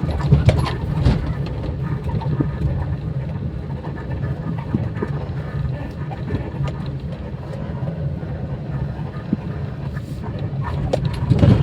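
Maruti Suzuki Celerio driving on the road, a steady road and engine rumble with irregular squeaks and creaks from the left front suspension. The noise, which the mechanic calls a very irritating one, is the sign of a dry, worn lower control arm ball joint: its boot has torn and let in dirt and water, spoiling the grease.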